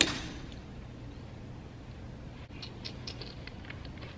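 A single sharp knock right at the start that rings briefly in the hall, then a scatter of light clicks and taps as a microphone is handled on its stand, over a low steady hum.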